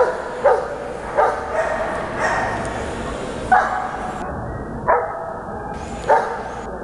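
A dog barking in short, sharp yips, about seven in all, spaced roughly a second apart.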